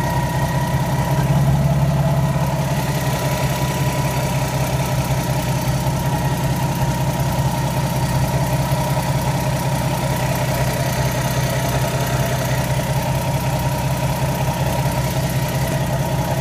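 Lexus IS300 idling stopped in drive, with a steady rattle over the engine hum. The owner takes it for a transmission rattle, since it comes only in drive at a standstill and goes away once the car is moving.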